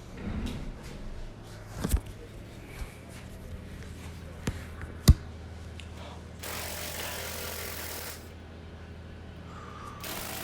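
Work noise: a few sharp knocks, the loudest about five seconds in, then a steady rushing noise for about two seconds that is typical of a power tool, over a low steady hum.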